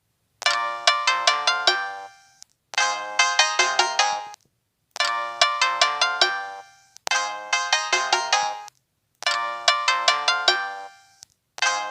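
An LG 630 mobile phone's built-in polyphonic ringtone: a short phrase of about six or seven quick electronic notes, repeated about every two seconds with a brief gap between repeats.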